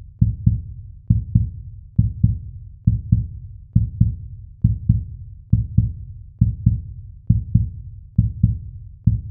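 Heartbeat sound effect: deep double thumps, lub-dub, a pair a little under once a second.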